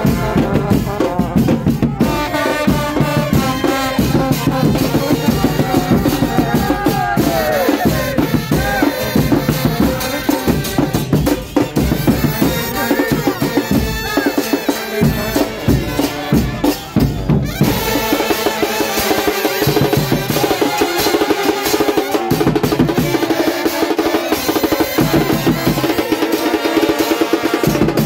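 A supporters' street band playing: brass horns, trombones among them, carry a chant tune over pounding bass drums, with crowd voices mixed in.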